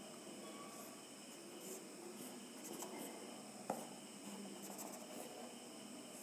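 Faint marker strokes squeaking and scratching on a whiteboard as a circuit diagram is drawn, over a steady high-pitched background whine. There is one sharp tap a little over halfway through.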